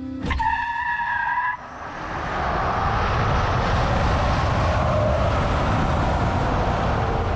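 GMC Hummer EV pickup launching hard: a brief high squeal starts about a quarter second in and stops after a little over a second, then a rush of wind and tyre noise builds and holds steady as the truck runs at speed, heard from a camera mounted low on the truck.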